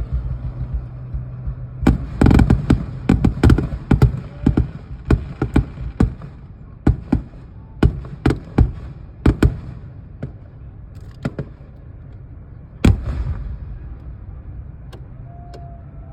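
Fireworks going off in an irregular run of sharp bangs and cracks, coming thick and fast for several seconds before thinning out, with one last loud bang near the end. A low steady hum runs underneath.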